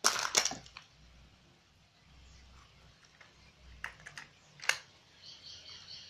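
Clear plastic toy capsule being twisted and snapped open: a quick cluster of loud plastic clicks, followed about four seconds in by a few lighter clicks as the plastic halves are handled.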